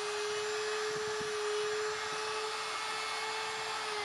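Handheld plunge router with a 3/8-inch spiral upcut bit running at full speed with a steady high whine, cutting a deck-beam mortise in a wooden kayak gunwale. The pitch starts to drop right at the end as the motor winds down.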